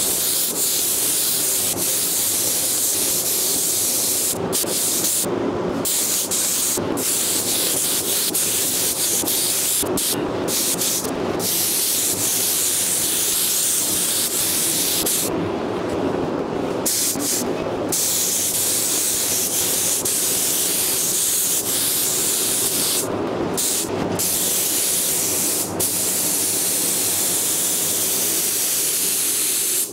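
Gravity-feed spray gun hissing steadily as compressed air atomises white paint onto a car bonnet. The trigger is let off for brief moments several times, and a steady low hum runs underneath.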